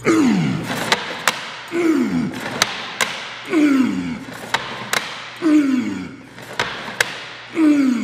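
Repetitions on an Iron Chest Master resistance-band chest device. About every two seconds a short sound slides down in pitch, five times in all, with sharp clicks between, mostly in pairs.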